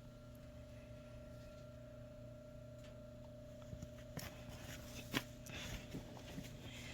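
Faint scratching and a few soft clicks of hands sifting moist compost in a worm bin, over a steady low hum.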